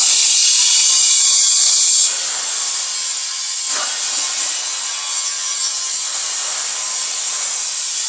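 Plate rolling machine running as a sheet-steel concrete mixer drum cone is worked through its rollers, giving a loud, steady metallic hiss. It starts suddenly and eases a little about two seconds in.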